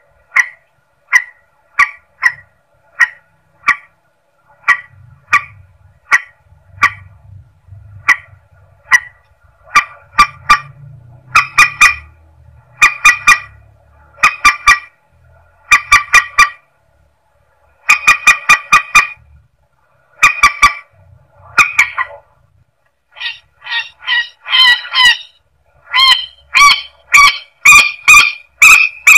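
Recorded lure call of the mandar sawah, a rail-family water bird: short, nasal, honking notes repeated about every two thirds of a second, then doubled and tripled, breaking into faster, louder runs that rise in pitch near the end.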